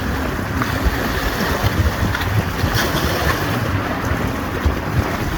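Strong wind buffeting the microphone with a steady low rumble, over wind-driven waves splashing against the rocks of the shore.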